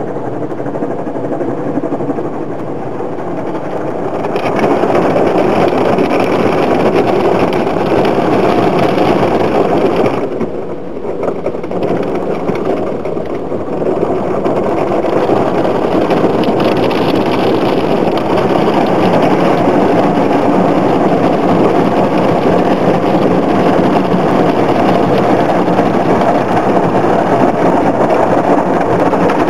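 Automatic car wash heard from inside the car: a steady rush of water spraying and running over the windscreen and body, with the wash machinery running. It gets louder about four seconds in and briefly eases around the middle.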